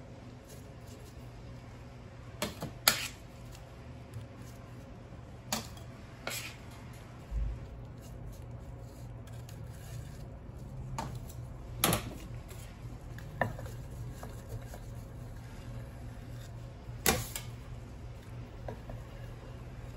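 Cake decorating tools and utensils handled on a work counter: scattered sharp clicks and knocks as things are picked up and set down, the loudest about three seconds in, near the middle and near the end, over a steady low hum.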